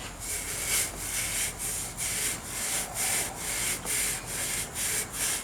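Sandpaper rubbed back and forth by hand on a motorcycle handlebar, quick rasping strokes about three a second, clearing leftover chunks off the bar so the new grip will slide on.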